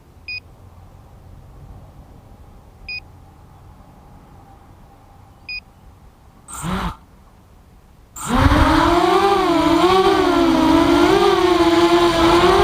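Walkera F210 racing quadcopter: three short high electronic beeps about two and a half seconds apart, a brief burst of its motors about 7 seconds in, then its brushless motors and propellers spin up about 8 seconds in and run loud with a whine that wavers in pitch.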